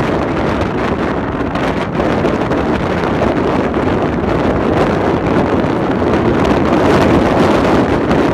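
Wind blowing across the microphone: a steady, loud rushing with a low rumbling buffet.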